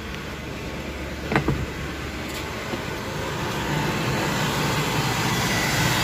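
Lexus LS430's V8 engine idling steadily with the A/C switched on but its compressor not engaging; the idle grows louder toward the end as the engine bay is approached. A single thump about a second and a half in.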